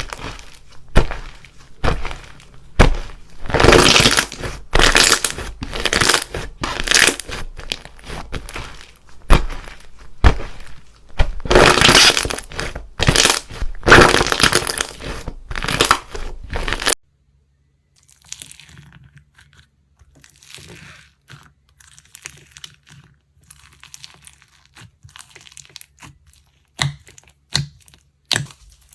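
Crunchy slime being pressed and squished by hand, giving dense, loud crackling and popping. About two-thirds of the way in it cuts to a much quieter slime clip with sparse soft crackles over a faint low hum.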